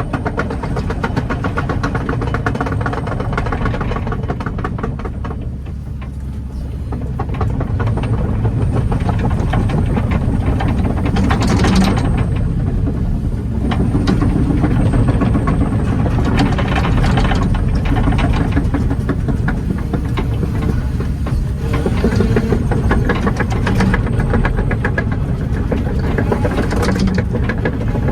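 Kobelco 20-tonne excavator's diesel engine running steadily as the machine travels on its steel tracks, with a dense rattle and a few short clanks from the tracks and undercarriage.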